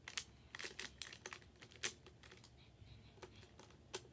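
Magnetic building blocks clicking together as they are placed, with several short clicks at irregular intervals.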